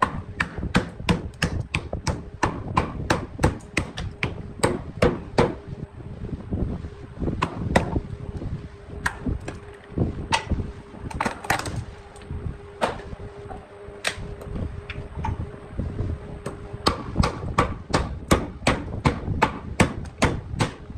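Hammering on wood: sharp blows in a quick, fairly even rhythm of about two to three a second, with a few short pauses. A faint steady hum runs under most of it and stops near the end.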